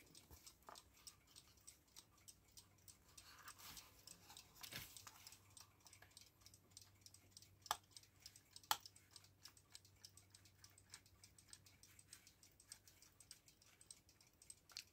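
Faint, steady ticking of a mechanical clock, about five ticks a second, with two louder sharp clicks about eight and nine seconds in.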